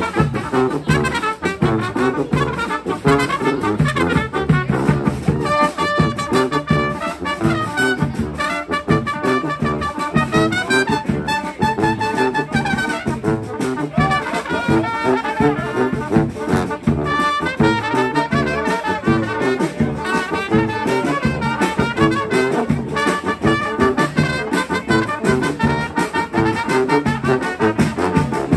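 A brass street band playing live: horns carry the tune over a steady beat, with long held notes from about six to twelve seconds in.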